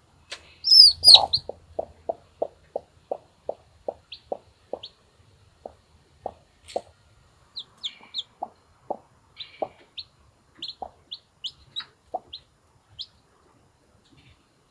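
Brahma mother hen clucking in a run of short low clucks, about three a second at first and then more spaced out, while her newly hatched chicks peep in short high notes. A loud burst of chick peeping comes about a second in.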